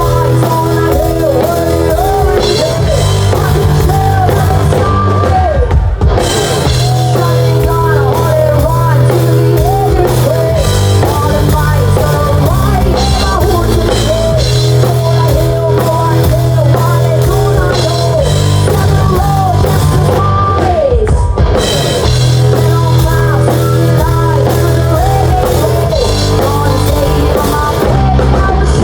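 Live rock band playing loud through a PA during a sound check: drum kit, bass and guitar under a melody that slides and wavers in pitch.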